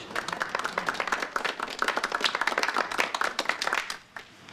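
Applause: many hands clapping in a dense patter that dies away about four seconds in.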